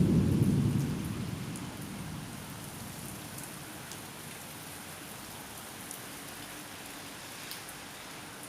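Steady rain falling, with scattered drips ticking through it. A low rumble of thunder is loudest at the start and fades away over the first two seconds or so.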